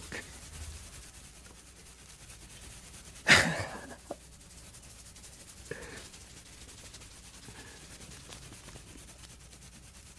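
A single short, sharp burst of breath from a person about three seconds in, fading within half a second, then a faint click. Otherwise a quiet room with a steady low hum.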